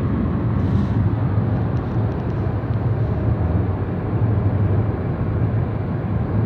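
Steady road and engine noise of a moving car, heard inside the cabin: a low, even rumble with no pauses.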